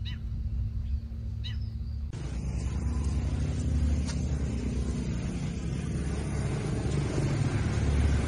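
A motor vehicle's engine running with a steady low rumble, with a few short bird chirps in the first second and a half. About two seconds in a louder rushing noise takes over and slowly builds.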